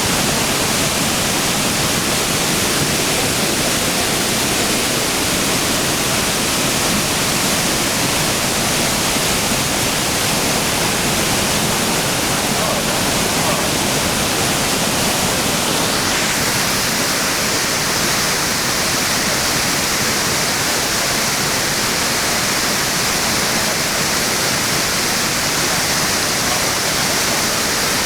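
Iguazu Falls: a large waterfall's steady, heavy rush of falling water. About halfway through the sound turns brighter and hissier.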